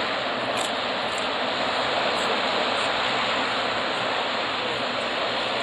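Steady rushing noise of a Boeing 777-300ER's GE90 turbofan engines at taxi power as the airliner rolls past.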